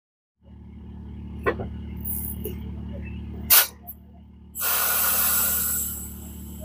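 Hino truck clutch booster's open fitting spitting air and dirty fluid: a short sharp hiss about halfway through and a longer hiss lasting over a second near the end. Underneath is the steady hum of the truck's engine idling.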